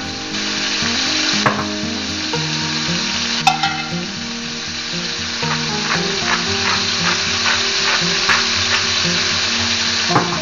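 Floured beef tips sizzling steadily as they brown in olive oil in a stainless steel skillet, with metal tongs turning them. A sharp metallic clink rings out about three and a half seconds in.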